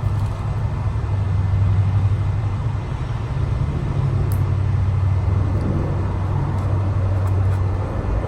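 A steady low hum or rumble, with no words over it.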